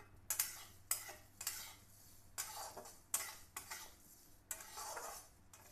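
Metal spatula scraping and clinking against a metal kadhai as dry thin vermicelli is stirred and roasted in a little ghee. There are about eight irregular strokes, roughly one every half second to second.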